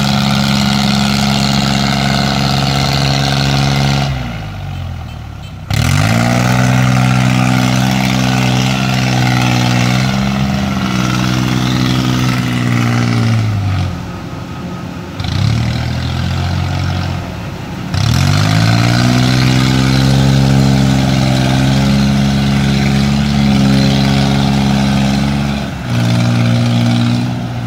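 Diesel engine of a tracked rice combine harvester working through deep mud, its revs sagging and picking back up several times as it struggles under the load.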